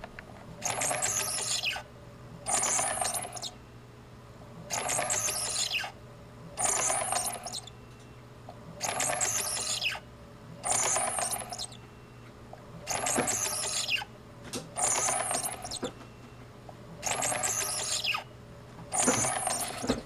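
Motor-driven test fixture turning a ZT-102 multimeter's rotary function switch back and forth in an endurance life test. Each sweep is about a second of switch clicking and motor whine, repeating about every two seconds, ten sweeps in all.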